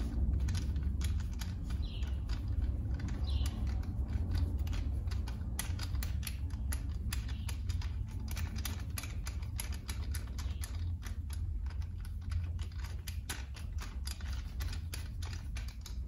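Irregular light clicks and taps of a motorcycle rear brake caliper and its bracket being worked into place by hand, over a steady low hum. The caliper is not seating, which the rider puts down to a rubber boot catching.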